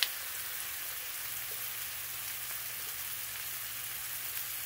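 Chicken broth pouring from a measuring jug into a pot of frozen mixed vegetables, over the steady sizzle of diced chicken frying in butter in a cast iron skillet. A sharp click at the start and another near the end.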